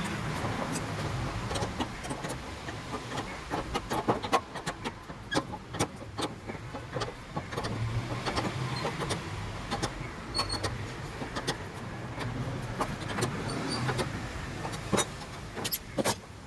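Irregular clicks and taps of hand-work on gas stove parts over a steady low rumble.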